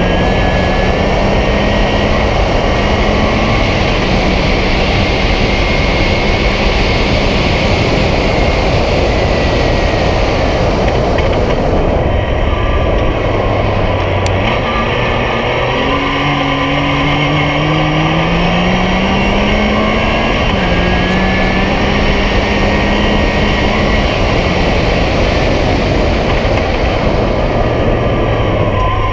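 Yamaha YXZ1000R side-by-side's three-cylinder engine running under way on a dirt road, with heavy wind and road noise. Its pitch holds steady in stretches, dips about halfway through, then climbs again as it picks up speed.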